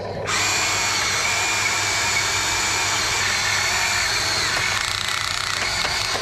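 Huina RC excavator's electric motors whining steadily as the boom and bucket swing and work over the dump truck. The whine starts about a quarter second in and holds at one pitch, with a slight dip in pitch about four and a half seconds in.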